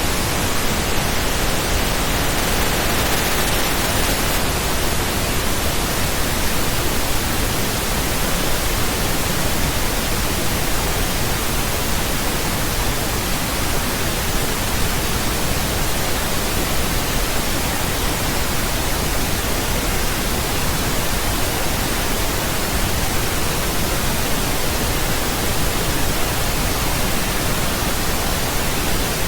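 Steady pink noise: an even, unchanging hiss across all frequencies.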